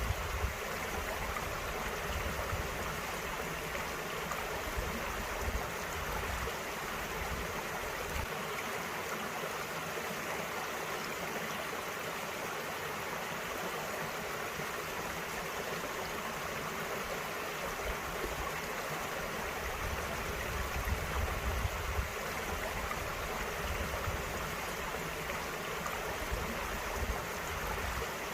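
Small mountain creek with water flowing and splashing over rocks in a steady, unbroken rush.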